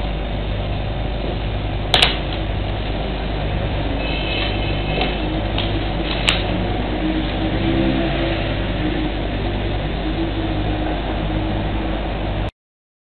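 Steady office room noise with a low electrical hum, fan-like. A sharp click comes about two seconds in and a lighter one about six seconds in. The sound cuts off abruptly near the end.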